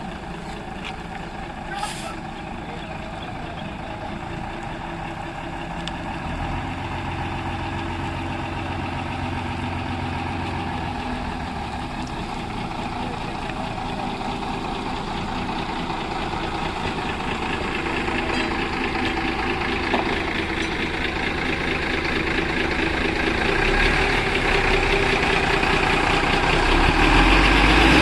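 Heavy diesel engine running, getting steadily louder, most of all near the end. A single sharp click about two seconds in.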